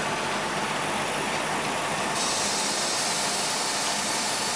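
Japanese-built steam locomotive hissing steadily as steam escapes, the hiss growing brighter and sharper about two seconds in.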